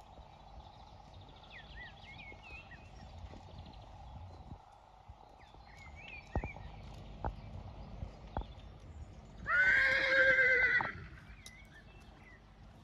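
A horse whinnying once, a loud wavering call about a second and a half long, about three-quarters of the way in. Before it come three sharp knocks about a second apart.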